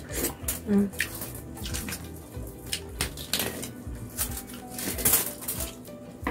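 Close-up eating sounds: chewing and lip-smacking on grilled chicken and rice, with the aluminium foil tablecloth crinkling as fingers pick food off it, irregular clicks and crackles over background music.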